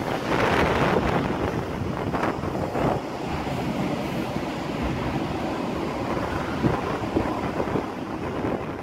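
PKP Intercity electric locomotive moving away along the track, its running and wheel noise mixed with wind buffeting the microphone. The sound is loudest in the first second or so, then holds steady.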